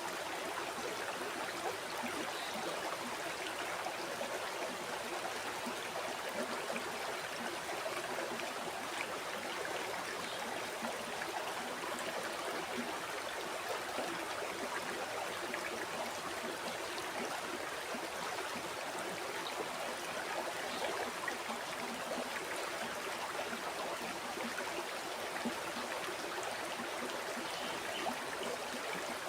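River water flowing and babbling over stones, a steady rushing and gurgling.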